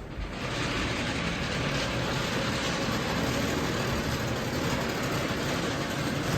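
Genie Excelerator garage door opener running steadily as it drives the door open, a mechanical whirring with a low motor hum, moving the door quite fast.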